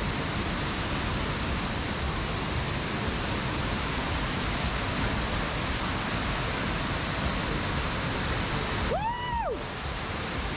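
Waterfall roaring as a steady rush of falling water. About nine seconds in, a short tone rises and falls once.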